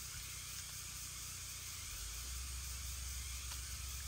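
Steady hiss with a low rumble that grows louder about two seconds in, and a couple of faint clicks.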